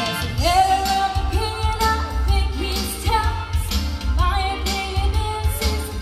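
A woman singing a Motown song live on stage over loud accompanying music with a steady drum and bass beat, holding long notes.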